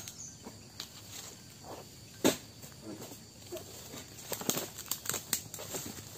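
A long oil palm harvesting pole knocking and scraping among the palm's fronds: one sharp knock about two seconds in, then a run of crackling rustles and clicks as the blade works in the crown.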